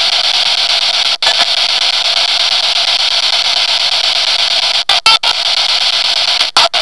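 Spirit box radio sweep heard over a phone line: a loud, steady static hiss with no low end. Brief silent gaps cut it about a second in, near five seconds and near the end, with a short snatch of radio sound near five seconds.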